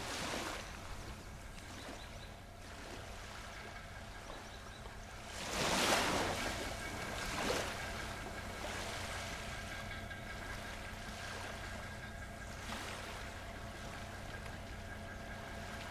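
Ocean waves washing in, with one wave surging loudest about six seconds in and a smaller one a second and a half later. A faint steady hum runs underneath.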